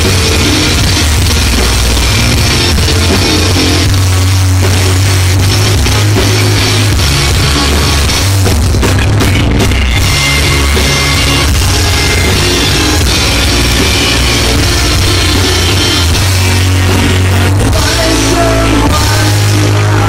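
Live rock band playing loud: electric guitar, bass guitar, keyboards and drum kit.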